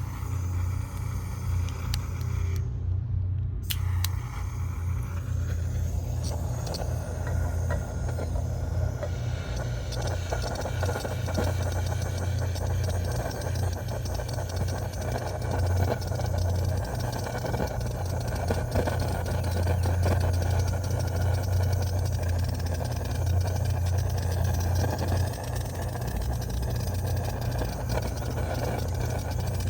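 Gas torch running steadily with its flame directed at a pan of furnace oil: a continuous low rumble, joined from about six seconds in by a louder, steady rushing hiss.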